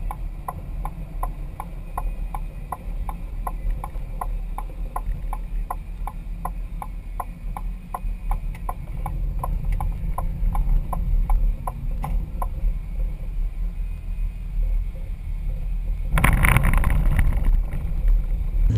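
Road and engine rumble inside a Ford Windstar minivan's cabin, with the turn signal ticking about three times a second until it stops about twelve seconds in, after the right turn. Near the end a louder rush sets in as the tyres run onto a dirt road.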